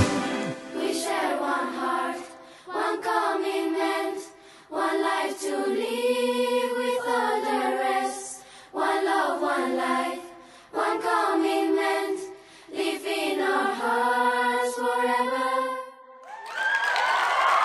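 Choir singing unaccompanied in short phrases separated by brief pauses. Applause breaks in near the end.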